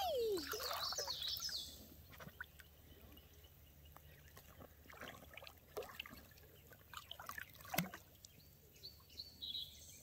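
Shallow creek water trickling with faint scattered splashes, and bird chirps. A brief falling voice sound opens it, and one sharper splash or knock stands out about eight seconds in.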